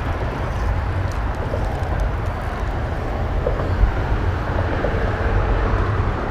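Steady low rumble of traffic on highway overpasses overhead.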